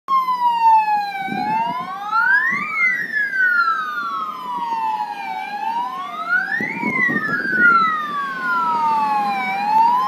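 Aftermarket electronic police siren on a motorcycle, wailing: the pitch sweeps up quickly and falls slowly, about every four seconds, with two overlapping tones a fraction of a second apart.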